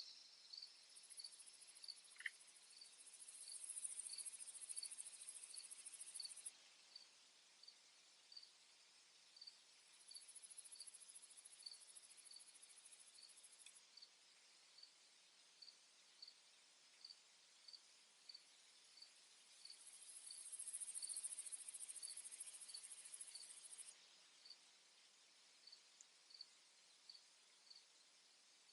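Faint field ambience of insects: a cricket chirping in a steady, even rhythm, about one or two high chirps a second, joined three times by a higher-pitched buzzing insect trill that swells in and holds for several seconds before cutting off. A single short sliding note sounds about two seconds in.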